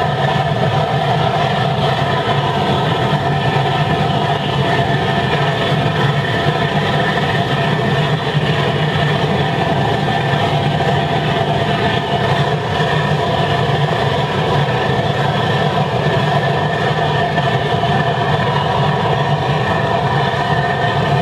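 Waste-oil burner firing at full air into a 205-litre steel drum furnace: a loud, steady rush of flame and forced air, with a constant hum under it.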